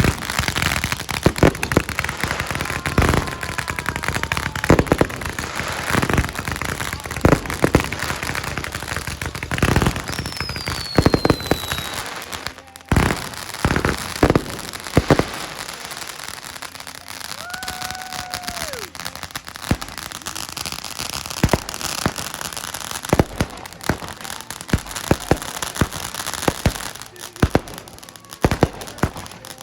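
Consumer fireworks going off in quick succession: repeated sharp bangs over steady crackling, with a couple of falling whistle tones. The bangs come thick at first and grow sparser after about twelve seconds.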